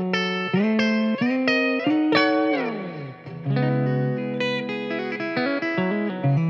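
Squier Telecaster Cabronita electric guitar played clean through an amp on its bridge pickup: a slow phrase of held notes ringing into one another, with a slide down in pitch about two seconds in. The tone is soft and not bright.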